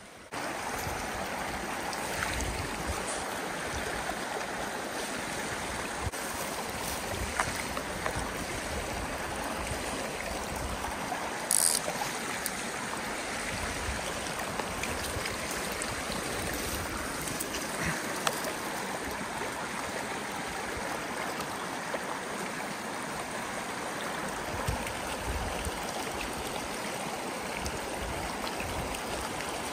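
Small spring creek running steadily over a gravel bed. There is a brief sharp click-like sound about twelve seconds in.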